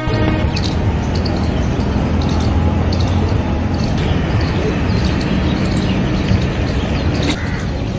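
Outdoor street ambience: a steady low rumble of traffic with birds chirping repeatedly over it.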